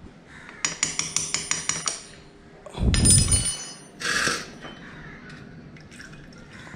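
Ratchet spanner clicking rapidly, about seven clicks a second for over a second, as the oil filter cover bolts on a Yamaha R15 engine are undone. Then a thud with a ringing metallic clink and a brief scrape as tools or bolts are handled.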